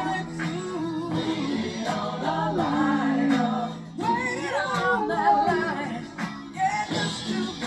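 A song playing, a sung vocal line over steady accompaniment.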